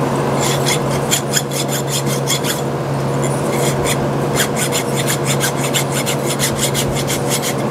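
Small hand file stroked quickly across a small metal piece, with short rasping strokes at about four a second and a brief pause near the middle.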